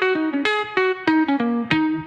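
Background music: an instrumental break of a hip-hop track, with a guitar picking out single notes, several a second.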